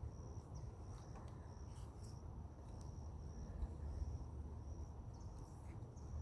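Insects trilling: a steady high-pitched note broken by short gaps, over a low rumble.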